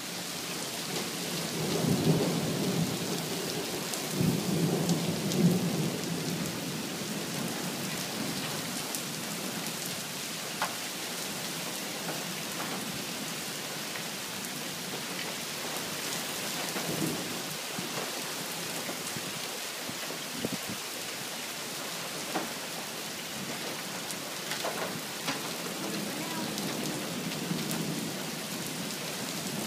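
Monsoon thunderstorm: steady rain falling, with thunder rumbling loudest a couple of seconds in and again near the end, and a few sharp drip ticks.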